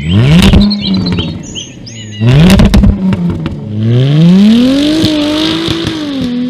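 Performance car engine blipped sharply twice, each rev followed by loud exhaust pops and crackles. It then revs up more slowly, holds, and settles to a steady lower note.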